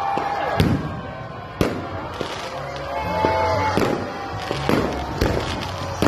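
Aerial fireworks shells bursting in a quick series of sharp bangs, about one or two a second.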